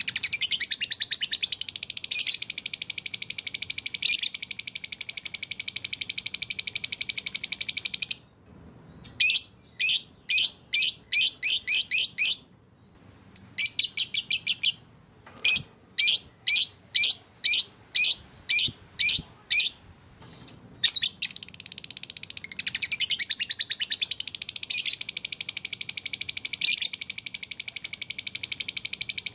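Canary and lovebird singing: long, dense, high-pitched trills lasting several seconds at the start and end, with runs of separate short sweeping notes, about two a second, in between.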